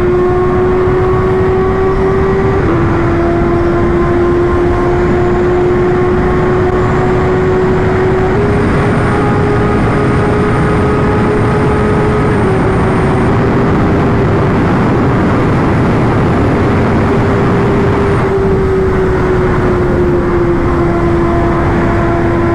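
Kawasaki inline-four sportbike engine held at high revs on the move, a steady high-pitched engine note that steps slightly up and down a few times, over a loud rushing noise.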